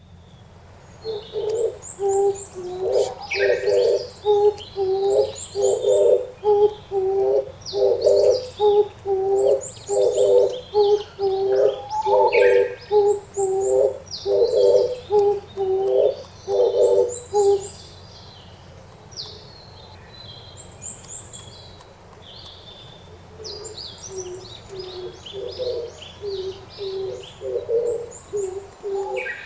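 Oriental turtle dove cooing its rhythmic song in repeated phrases, with a pause partway and fainter coos returning near the end. Small birds chirp high above it throughout.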